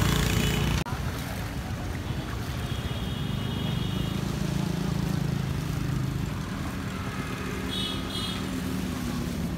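Motor vehicle engines running in street traffic: a steady low drone, broken suddenly about a second in, with two short high-pitched beeps.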